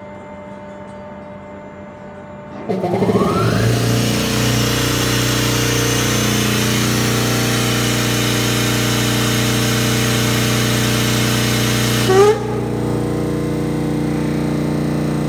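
Sperre marine air compressor starting up about three seconds in, its pitch rising quickly, then running steadily with a loud air hiss over its hum. Near the end a brief louder burst comes and the hiss drops away sharply while the compressor keeps running, as its unloader valve shuts and the compressor begins to load.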